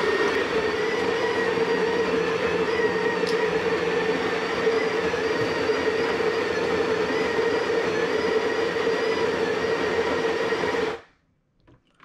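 Breville electric coffee grinder grinding espresso beans: a steady motor hum with a whine, cutting off suddenly about eleven seconds in.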